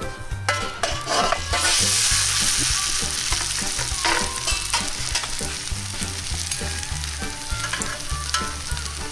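Grated raw-potato and bacon rösti dropped back into a cast-iron pan of hot melted butter. A loud sizzle swells up about a second and a half in and settles into steady frying, with a metal spatula working in the pan.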